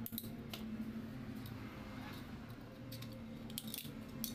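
Scattered small metallic clicks and taps as locking pliers clamped on a rusty foot-pump spring are handled and a second hand tool is brought to it, over a faint steady low hum.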